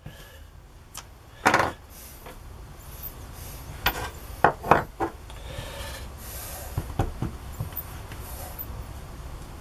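Plastic nozzle parts of a boilie bait gun being unscrewed and handled on a worktop to clear out leftover bait paste: a series of short clicks, knocks and rubbing, the loudest about a second and a half in and a cluster of knocks around four to five seconds in, over a low steady hum.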